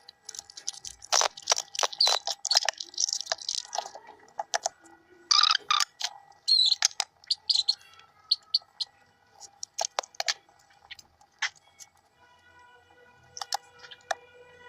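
Adhesive tape being pulled off the roll and pressed down, an irregular run of crackling rips and clicks, busiest in the first half.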